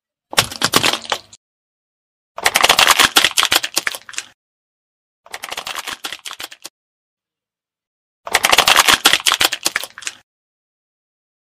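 Objects being crushed under a car tyre: four separate bursts of dense crunching and crackling, each one to two seconds long, with dead silence between them.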